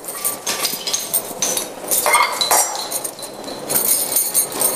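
Metal tableware (brass bowls and a steel tumbler) clinking against each other as it is handled and set down: a run of light clinks, some leaving a brief high ring.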